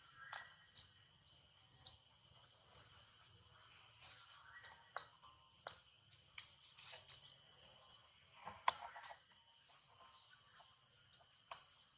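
Steady, high-pitched insect chorus droning without a break. Scattered light clicks and rustles of dry leaf litter run under it, with one sharper click about three-quarters of the way through.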